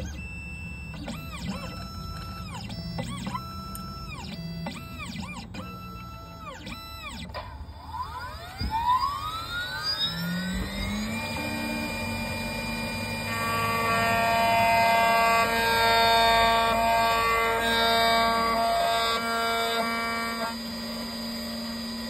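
Computerised key cutting machine: its motors whine in short repeated moves that ramp up, hold and ramp down, then about eight seconds in the cutter spindle spins up with a rising whine and settles into a steady high whine. It grows louder from about thirteen to twenty seconds as it mills the blade of an Audi A3 flip remote key.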